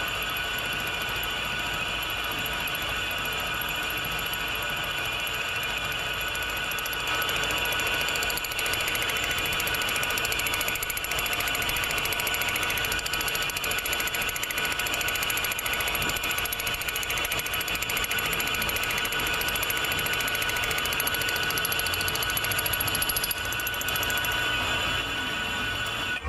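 Metal lathe running steadily with a high-pitched whine made of several held tones, getting louder about seven seconds in.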